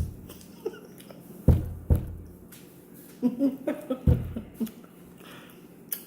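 Several dull, low thumps, like knocks against the table or microphone: one at the start, two close together about a second and a half in, and another about four seconds in. Brief murmured voice sounds come between the last two.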